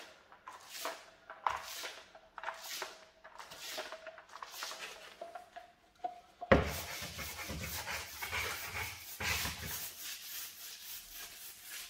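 Paintbrush stroking latex paint onto a plastered window reveal in a series of short strokes, a little over one a second. About halfway through this gives way to a small paint roller rolling the paint on, a continuous rolling noise.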